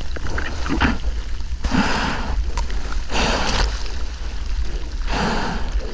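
Surf water churning and splashing around a surfboard as a surfer paddles out through heavy waves, with splashes about every second and a half over a steady low rumble of moving water.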